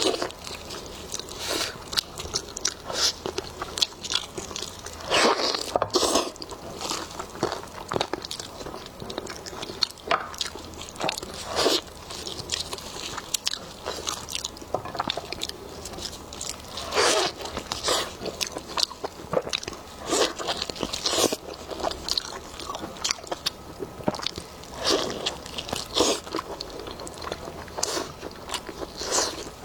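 Close-miked eating of spicy lamb ribs: irregular wet chewing, biting and crunching, with sharp clicks and a few louder crunches scattered throughout.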